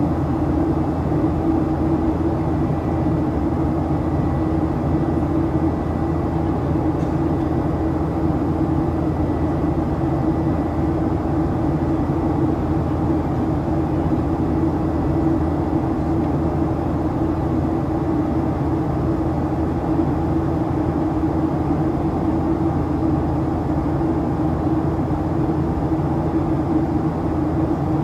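Boeing 737-800's CFM56-7B turbofan engines heard inside the passenger cabin in flight: a steady droning hum with several held tones over a low rumble, the buzzsaw tone of the fans at high thrust.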